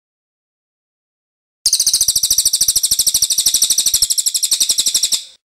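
Songbird song: a loud, rapid, high-pitched rattling trill of evenly repeated notes that starts abruptly about a second and a half in and cuts off just before the end.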